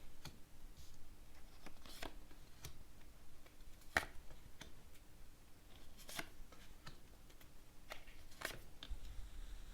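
Cards being shuffled and laid out by hand: faint, scattered swishes and snaps, the sharpest about four seconds in.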